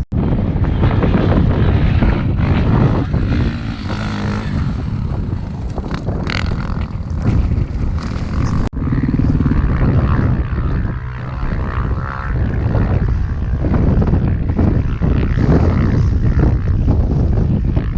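Off-road vehicle engine running under way over rough ground, with jolts and rattles. The sound drops out sharply for an instant about halfway through.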